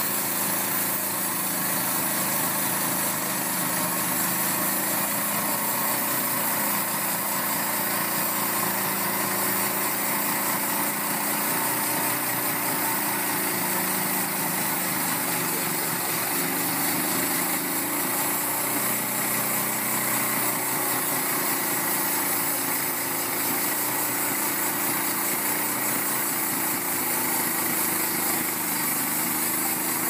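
Homemade band sawmill running steadily: its small gasoline engine drives the band blade through a log as the carriage is pushed along.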